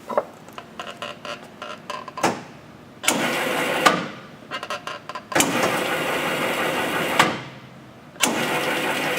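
Peddinghaus Perfekt 32 CAB CNC rebar bender operated manually: its bending drive runs three times, about one to two seconds each, each run starting and stopping with a sharp clunk. Light clicks and a knock come first.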